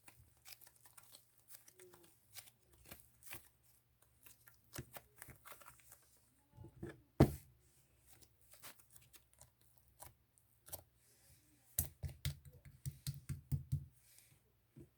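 Close handling sounds: scattered light clicks and rustles, a sharp knock about seven seconds in, and a quick run of taps near the end.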